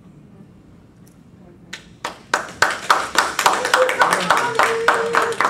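Small group applauding, starting suddenly about two seconds in after a quiet pause.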